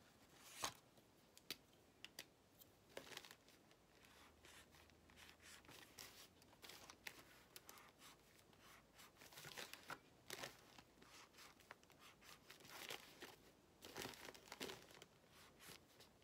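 Faint, irregular scratching of a felt-tip marker drawn in short strokes on a paper coffee filter, with the thin paper crinkling as it is handled. A single sharper tap comes about half a second in.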